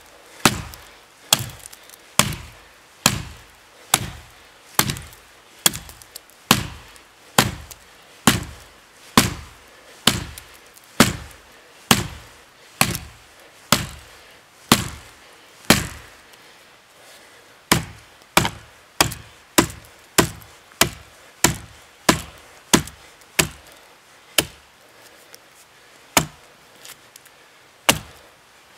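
Gränsfors Bruks Small Forest Axe chopping into a standing dead tree: a steady run of sharp blows, a little faster than one a second, with two short breaks, one midway and one towards the end.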